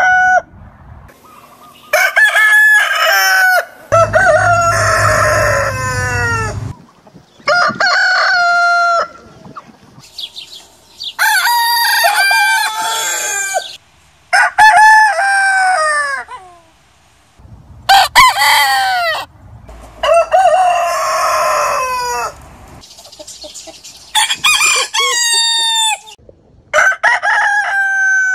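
Roosters of different breeds crowing one after another: about nine separate cock-a-doodle-doo crows, each one to three seconds long and ending in a falling note, with short gaps between them.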